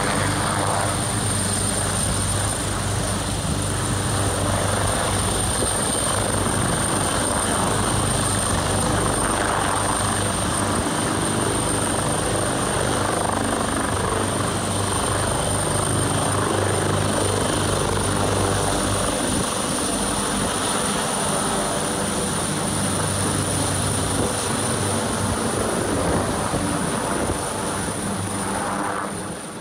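Twin-turbine AgustaWestland AW139 air-ambulance helicopter lifting off and hovering low, its rotor beat and a steady high turbine whine holding, then climbing away overhead as the sound fades near the end.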